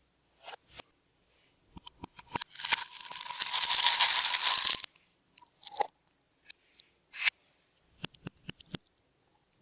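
Slime being squished and kneaded by hand, with makeup and glitter mixed in: scattered sticky clicks and pops, and a dense, loud crackling stretch of about two seconds in the middle.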